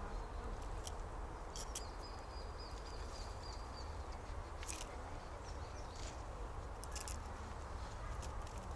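Autumn forest ambience with a steady low wind rumble on the microphone, a faint thin high bird call lasting about two seconds starting about two seconds in, and scattered short sharp crackles.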